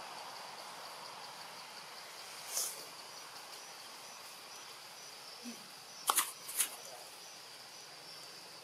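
Forest ambience: insects keep up a steady high-pitched drone, with a faint pulsing chirp joining in. A few brief rustling crackles come through, one a little before the middle and three in quick succession about six seconds in.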